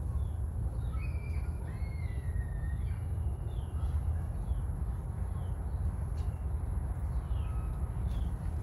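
Birds chirping in the background: short falling chirps about once a second, with a longer gliding whistled call in the first few seconds, over a steady low rumble.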